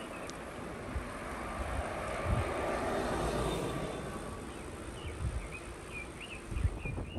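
A small tourist rental cart drives past, its noise swelling to a peak about three seconds in and then fading away. Birds chirp now and then, with wind rumbling on the microphone.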